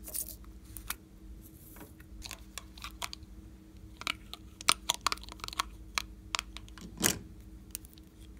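Small plastic pieces clicking and tapping as slime add-ins are handled: a cup of glitter, a studded disc and a tiny charm. Quick clicks come thickest in the middle, with a heavier knock about seven seconds in.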